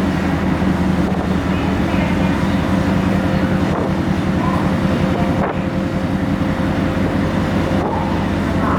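A ferry's engines droning steadily with a low hum, mixed with wind buffeting the microphone.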